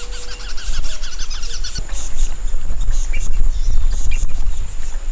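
A bird calls a quick run of repeated chirps in the first two seconds, with a few scattered chirps later, over a steady high-pitched insect drone. Under it runs a loud, uneven low rumble, the loudest sound throughout.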